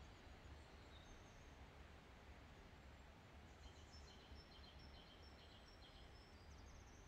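Near silence: faint outdoor ambience with a low steady hum and small birds chirping faintly and intermittently.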